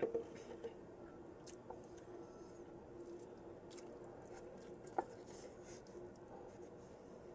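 Close-up chewing and mouth sounds of a person eating vegetables: soft wet squishing with scattered smacking clicks, a sharper one about five seconds in, over a faint steady hum.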